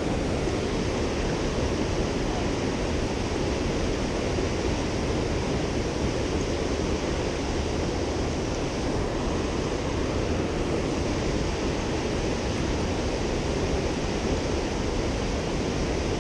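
Steady rushing of a mountain river's flowing water, an even unbroken noise.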